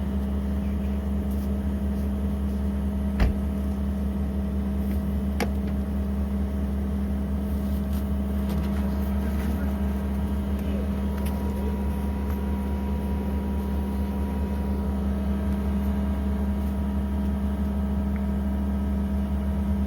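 An engine idling with a steady low drone. There is a sharp metallic knock about three seconds in and a fainter one about two seconds later.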